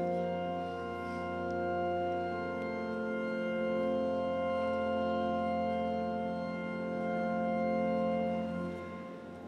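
Church organ playing slow, sustained chords over a deep bass pedal note, dying away about nine seconds in.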